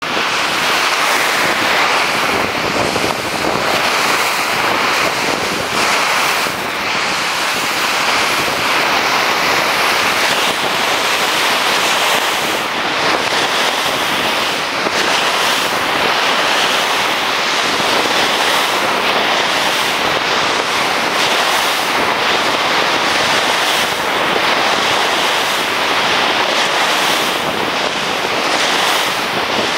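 Ocean surf breaking on a sandy beach: a steady, unbroken hiss of waves.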